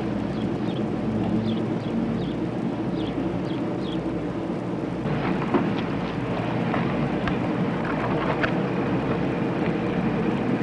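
Steady rumbling outdoor background noise with a few short high chirps in the first few seconds and scattered clicks after about five seconds.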